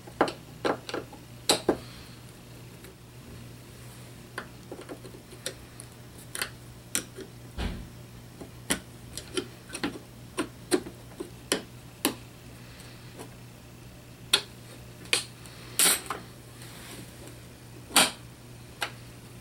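Irregular clicks and taps of a metal airsoft gearbox shell being handled and worked with a screwdriver while the cylinder and spring are held down, over a steady low hum.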